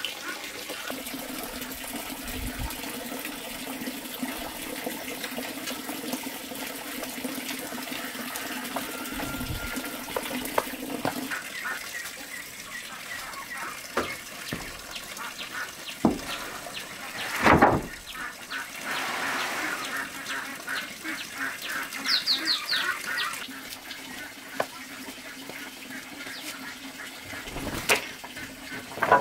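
Wooden planks knocking and clattering as they are handled, stacked and set down. There is a loud clatter a little past halfway and another knock near the end, over a steady background hum.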